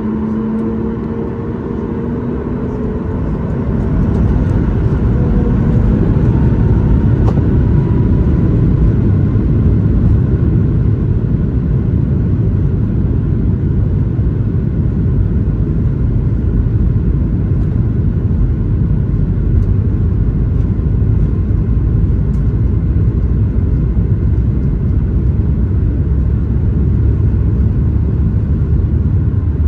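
Boeing 737 MAX 8's CFM LEAP-1B engines and airflow heard as a loud, steady low rumble inside the passenger cabin. It grows louder about four seconds in and then holds.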